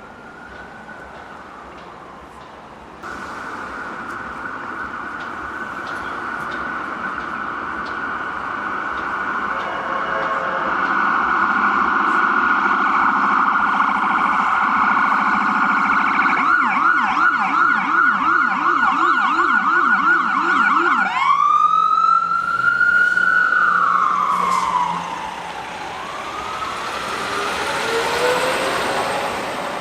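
Emergency vehicle siren passing by on the street: a steady high tone grows louder, switches to a fast yelp of about three cycles a second, then to slow wails that rise and fall, fading toward the end.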